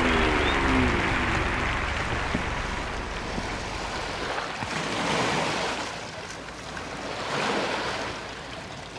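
Water running and splashing over shoreline rocks. It swells twice, around the middle and again near the end.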